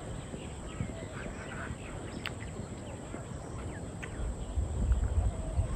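Rural outdoor ambience with a steady background hiss and scattered faint bird chirps. A low rumble comes in over the last second and a half.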